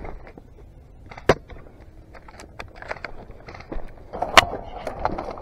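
Footsteps crunching on loose gravel and rocks with gear rattling, and two sharp cracks, about a second in and about four seconds in.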